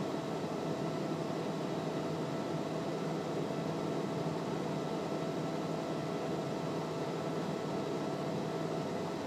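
Steady cabin drone of a Cessna P210R in cruise flight: its engine and the airflow, with a few faint steady tones.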